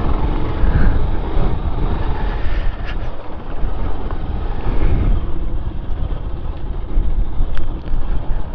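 Motorcycle running while riding, with heavy wind rumble on the microphone.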